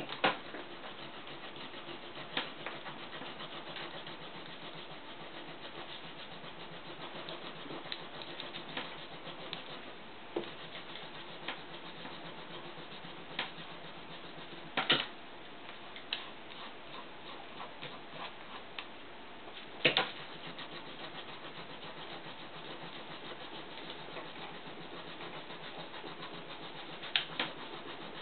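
Scattered light clicks and knocks from a table tennis blade being handled and dry-cleaned, a few sharper ones standing out, over a steady hiss.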